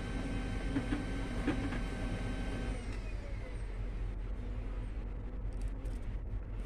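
Ricoh SP 210SU laser multifunction printer warming up after power-on: its internal motors run with a steady whine that slides down in pitch about three seconds in, over a low hum.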